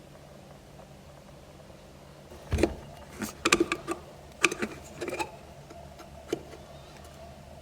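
A run of irregular knocks and clicks, some with a short ring, starting about two and a half seconds in and ending with one last knock near the end, over a steady low hum.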